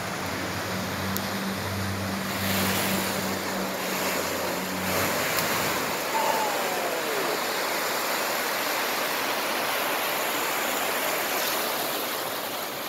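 A vehicle driving through deep street flood water, its wake rushing and splashing in a steady wash. A low engine hum runs under it for the first five seconds.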